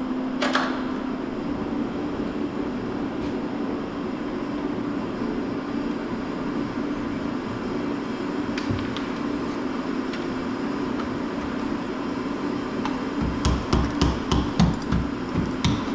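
A steady mechanical hum, with one sharp click about half a second in and a run of quick knocks and clicks starting near the end.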